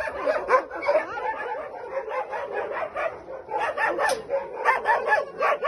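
Dogs barking and yelping: many short calls that rise and fall in pitch, in quick overlapping succession.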